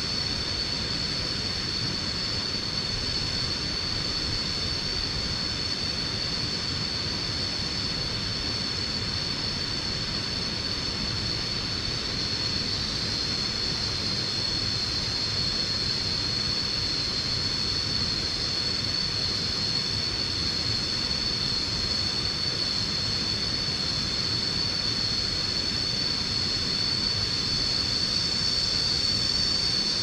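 Steady, high-pitched drone of a jungle insect chorus, with a low, even rushing noise underneath.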